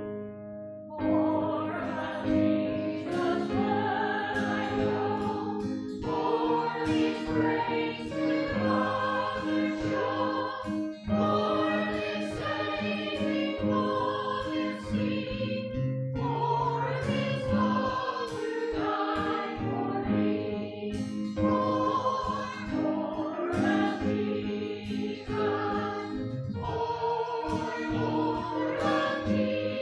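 A group of voices singing a hymn together over a keyboard accompaniment, in phrases of about five seconds each with short breaths between them.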